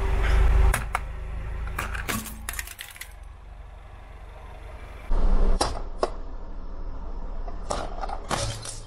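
Aluminium drinks can being crushed under a car tyre: sharp metallic crackles and clicks in several short clusters, over a low rumble that fades out for a couple of seconds midway and returns.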